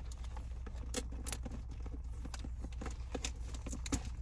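Gloved fingers picking at and peeling packing tape off a small cardboard box, making irregular small clicks and crackles over a steady low hum.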